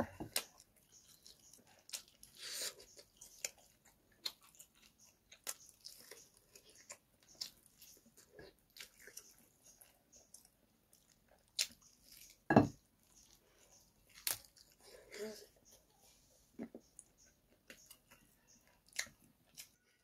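Close-miked chewing and biting of curried chicken eaten off the bone by hand: scattered soft clicks and mouth sounds, with one louder knock about twelve and a half seconds in.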